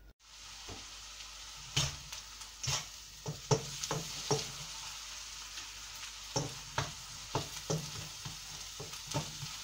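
Chopped onions sizzling as they sauté in butter in a frying pan, with irregular scrapes and taps of a utensil against the pan as they are stirred.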